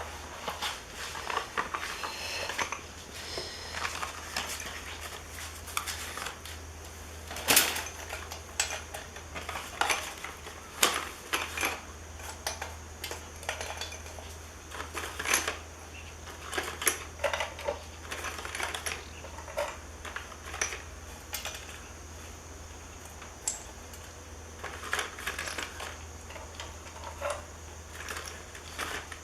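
Irregular clicks, taps and clinks of small hard parts being handled, with a sharper knock about seven seconds in, over a steady low hum.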